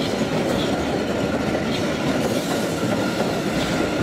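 Subway train running through an underground station, its wheels rumbling steadily on the rails, with a faint steady high tone and a few faint clacks over the rumble.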